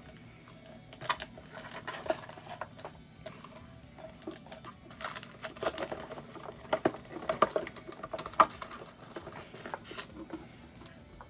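Handling an opened cardboard Pokémon Elite Trainer Box while taking out packs of card sleeves: an irregular run of clicks, taps and rustles, thickest in the second half, with one sharp tap about eight seconds in.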